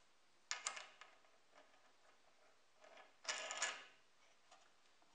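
Small wooden handle parts clicking and knocking as they are handled and fitted onto a threaded bolt: a short clatter about half a second in and a louder one a little past three seconds.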